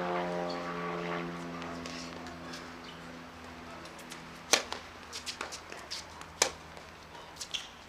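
Tennis ball struck by a racket: a sharp pop as the serve is hit about halfway through, then a second hit about two seconds later, with smaller ticks between and after. Before the serve, a steady engine drone fades away.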